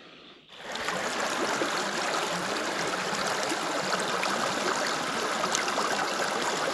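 Steady rush of running water, starting suddenly about half a second in, with faint ticks through it.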